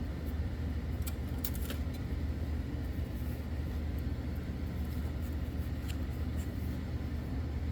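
A steady low hum in the work area, with a few light metallic clinks in the first two seconds and again near six seconds as the front brake caliper is handled.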